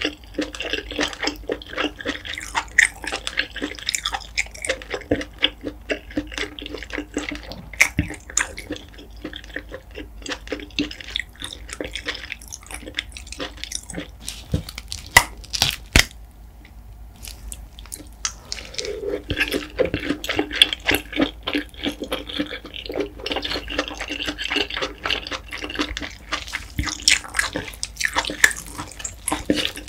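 Close-miked wet chewing and mouth sounds of someone eating steamed king scallop in spicy sauce: a quick, uneven run of small wet clicks and smacks, with a brief lull a little past halfway.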